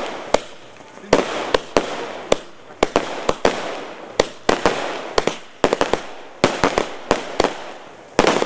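Aerial fireworks going off: an irregular, rapid string of sharp bangs, often several in quick succession, with a hissing haze between them.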